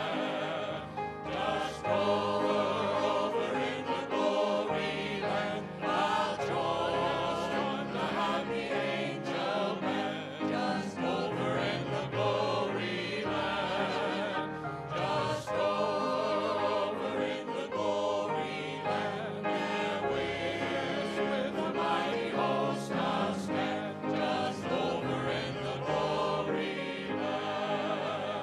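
A small group of singers singing an old gospel song together, without a break.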